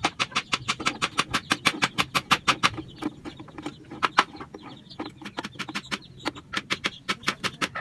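Rapid, regular metal clicking, about six clicks a second, as a T-handle socket wrench turns a bolt tight in a scooter's front fairing.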